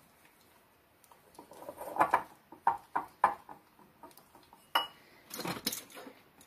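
A whisk stirring thick powdered-sugar icing in a ceramic bowl, knocking against the bowl in a run of quick taps. It is followed by a sharp clink and a clatter as the whisk is set down in the bowl.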